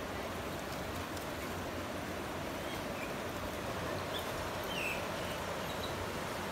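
Steady rush of a muddy river flowing over rocks and shallows, with a few short bird chirps about halfway through.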